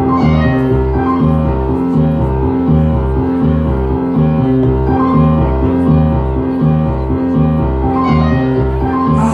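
Dance music with piano and a steady, repeating bass pattern.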